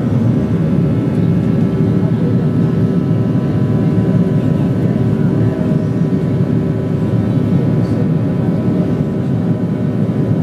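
Cabin noise of a Boeing 737-700 in its climb after takeoff, heard from a seat over the wing: the CFM56-7B turbofans running steadily at climb thrust, a deep even rumble with a few steady hum tones over it.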